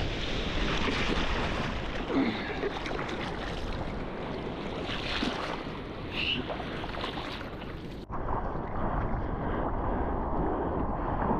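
Ocean surf washing and wind buffeting the microphone, a steady noisy rush. About eight seconds in it changes abruptly to a duller sound with the highs gone.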